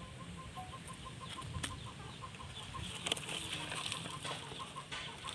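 Chickens clucking over a low steady rumble, with a faint, even pipping about five times a second.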